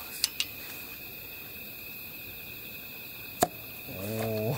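A steady high-pitched drone like a chorus of night insects, with three short sharp clicks or knocks of camp gear, the loudest about three and a half seconds in.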